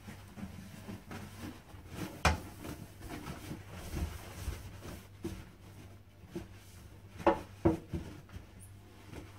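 A toilet being wiped down with antibacterial wipes: soft rubbing and handling, with a sharp knock about two seconds in and two more close together near the end as the plastic toilet seat and lid are lifted and handled.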